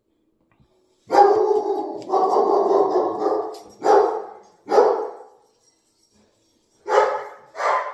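Pet dog barking: one long, drawn-out bark starting about a second in, then four short single barks. The owner takes it for alert barking at someone walking by outside.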